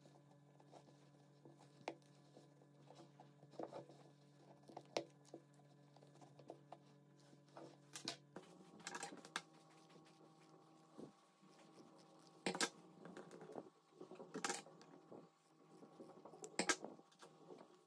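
Quiet craft handling: scattered small clicks and rustles as denim fabric is pressed and glued onto a plastic container, with a few sharper clicks later on, and scissors snipping through denim near the end.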